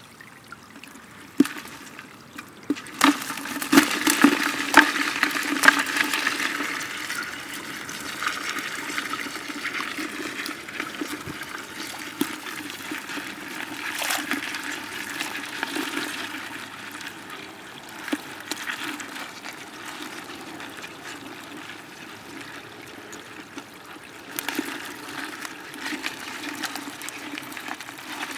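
Water rushing and sloshing, with a cluster of sharp splashes and knocks a few seconds in.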